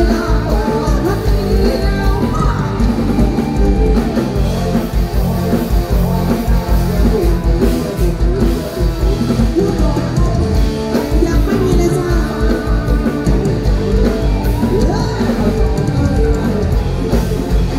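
Live band music played loud through a stage PA: a steady, bass-heavy drum beat with bass and guitar, and a woman singing into a microphone.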